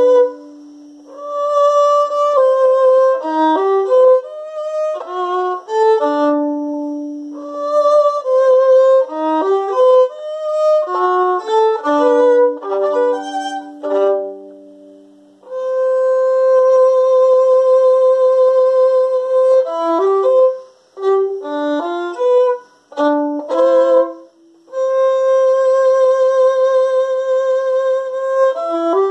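Solo violin playing a melody, bowed, with two long held notes with vibrato in the second half.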